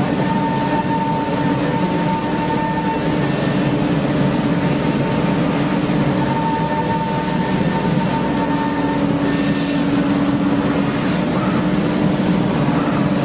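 Steady machine noise of a CNC machining centre running: a constant low hum under a higher whine that fades out a few seconds in and comes back around the middle.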